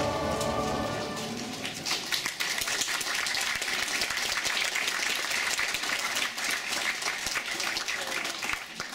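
A choir's final sung chord dies away in the first second or so, and about two seconds in the audience breaks into applause that keeps going, thinning near the end.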